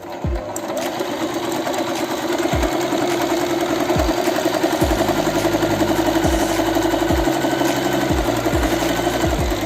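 Singer Promise 1412 electric sewing machine running steadily at speed while stitching a wide zigzag, a fast, even chatter that builds in loudness over the first few seconds.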